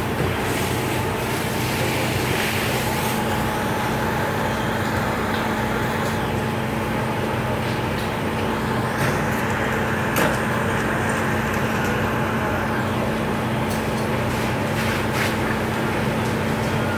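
Fire engines' diesel engines running steadily close by, a constant drone with a steady hum, broken by a few brief knocks.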